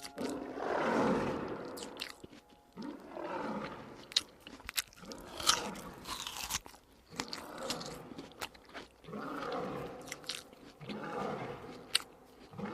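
An animal chewing and crunching food: irregular bursts of crunching, a second or two apart, with sharp clicks in between.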